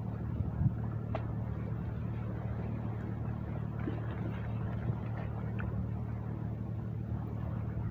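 A steady low engine hum with a few faint clicks over it.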